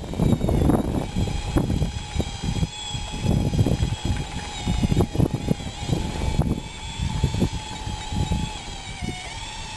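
Radio-controlled scale bulldozer working a gravel pile: a steady, slightly wavering motor whine over irregular crunching and knocking of loose stones pushed by the blade.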